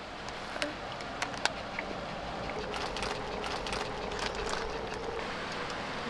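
Light clicks and taps from a drink can and tableware being handled, over steady outdoor background noise, with a faint steady hum for a few seconds in the middle.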